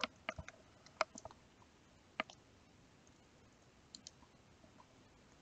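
Faint, irregular clicks of keys being typed on a computer keyboard: several close together in the first second or so, then a few scattered strokes, with quiet room tone between them.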